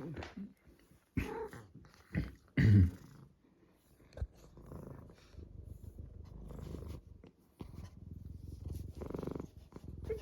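Domestic cat purring steadily through the second half, with a short break near the middle. It follows a few brief, louder sounds in the first three seconds, the loudest about two and a half seconds in.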